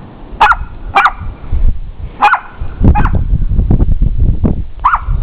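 Pomeranian barking: four short, high-pitched yaps, two in quick succession near the start, one a little after two seconds and one near the end, with a low rumbling noise between them.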